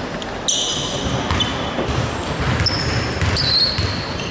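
A basketball being dribbled on an indoor court, with sneakers squeaking sharply several times on the floor.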